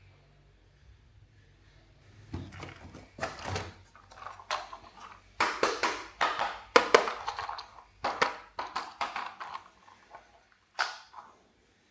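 Plastic toys being handled: an irregular run of knocks, clatters and rustles that starts about two seconds in.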